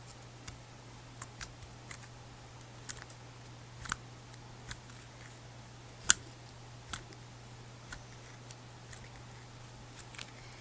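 Black glitter galaxy slime being kneaded and pressed by hand, giving small sticky clicks and pops at irregular moments, the loudest about six seconds in, over a faint low hum.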